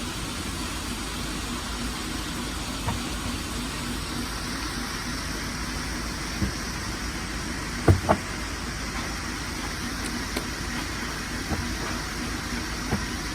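Steady low rumble and hiss, like an engine running nearby, with a few scattered sharp knocks. The loudest is a quick double knock about eight seconds in.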